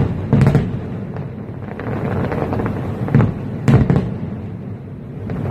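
Fireworks going off: a few sharp bangs near the start and more just past three seconds in, over a continuous crackle and rumble between them.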